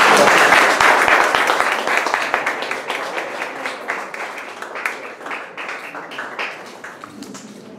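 Audience applauding, loudest at the start and dying away gradually over several seconds.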